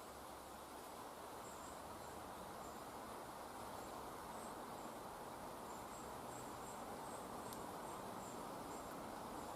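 Insects chirping faintly in short, high, irregularly repeated calls, over a steady low rush of background noise.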